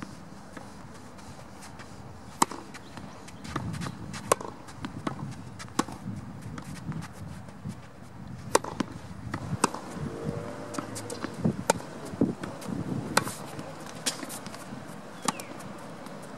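Tennis balls struck by a racket: sharp cracks every few seconds as shots are traded across the net, with softer ball bounces and footsteps on the court between them.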